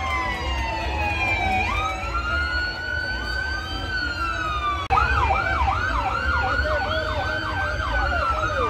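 Police vehicle siren: a slow wail that falls and then rises. After a sudden break about five seconds in, it switches to a fast yelp of about three sweeps a second.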